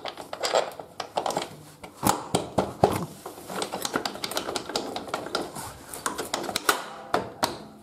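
Rapid, irregular metallic clicks and taps: a motorcycle's rear axle being pushed and worked through the wheel hub, spacers and swingarm while the wheel is lined up.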